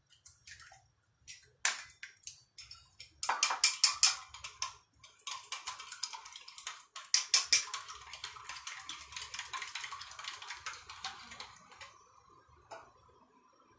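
Chopsticks beating an egg in a small stainless steel bowl: a fast run of light clicks and taps against the metal, starting about three seconds in and lasting about eight seconds, after a few single sharp taps.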